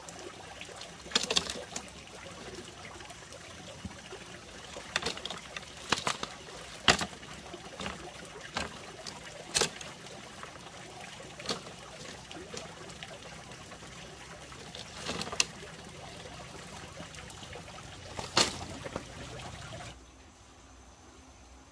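Green bamboo cracking and snapping as a pole is split lengthwise and pried apart into strips: about ten sharp, irregular cracks.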